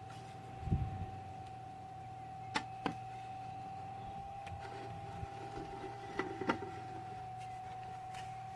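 Small battery-powered USB clip fan running with a steady whine and low hum, broken by a few sharp clicks, two close pairs among them.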